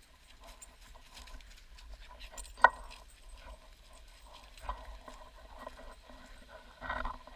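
Footsteps on a trail: an uneven run of small crunches and scuffs, with one sharp knock about two and a half seconds in.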